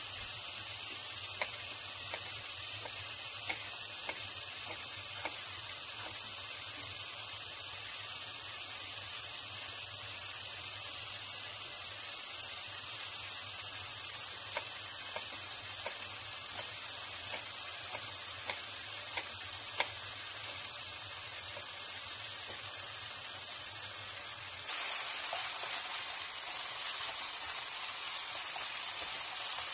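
Diced chicken breast frying in oil in a pan: a steady sizzle, with faint scattered taps of a knife on a wooden cutting board. The sizzle grows louder about 25 seconds in.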